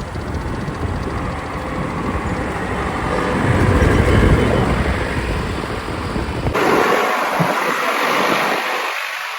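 Diesel engine of a JCB 3DX backhoe loader running, a steady low rumble with wind on the microphone. About two-thirds of the way through the rumble cuts off abruptly and only a hiss remains.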